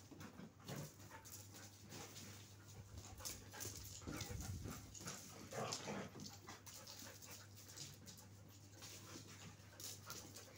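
Husky and another dog play-fighting: faint panting and irregular scuffling, with short bursts between about 3 and 6 seconds in, over a steady low hum.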